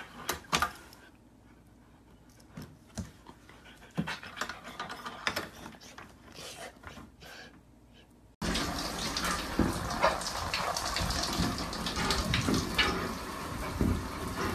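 A husky's quiet panting and a few small clicks and snuffles. Then, about eight seconds in, a shower starts running loudly, water spraying against a glass shower door.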